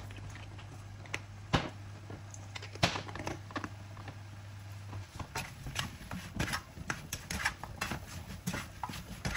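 Sliced mushrooms being stirred in a non-stick pan with a plastic spatula: irregular light clicks and scrapes from about halfway on. A steady low hum stops about five seconds in.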